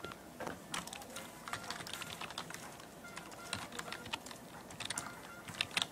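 Typing on a computer keyboard: a run of quick, irregular key clicks as an email address is entered.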